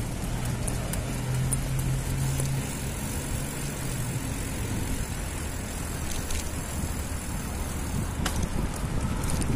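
Street traffic: a motor vehicle engine running close by, its low hum fading out about four seconds in, over a steady rush of road noise.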